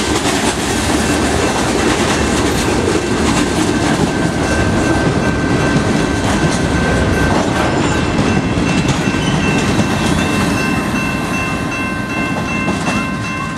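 Freight train cars rolling past at close range: a steady loud rumble and rapid clatter of steel wheels over the rails, with a few thin, high steady tones held over it.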